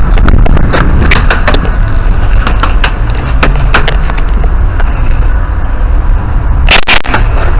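Heavy low rumble of movement and handling on a body-worn camera's microphone, with irregular sharp clicks a few times a second and two louder cracks in quick succession near the end.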